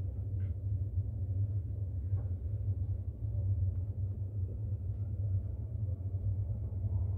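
Inside an AS-14 metro train running through a tunnel: a steady low rumble from the wheels and running gear, with a few faint ticks.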